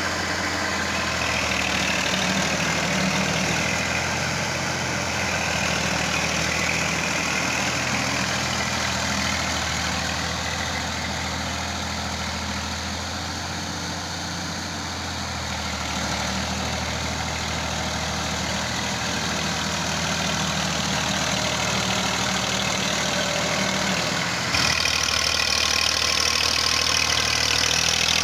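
Massey Ferguson 240 tractor's three-cylinder diesel engine running steadily under load as it pulls a heavily loaded straw trolley through mud. About 24 seconds in the sound jumps suddenly louder and brighter.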